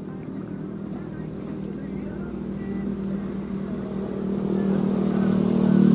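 A motor engine running at a steady pitch and growing steadily louder as it approaches.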